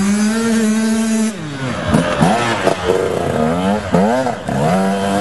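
Enduro motorcycle engine revving loudly. It holds high revs for about a second, then drops back and rises again several times as the bike passes close by.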